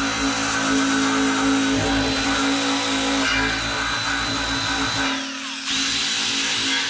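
Cordless drill spinning a Scotch-Brite Roloc surface-conditioning disc against a sheet-metal cowl panel, a steady high whine with the abrasive rubbing the metal as it scuffs the panel to give the paint something to stick to. About five seconds in the drill is let off and spins down, its pitch falling, then runs straight back up to speed.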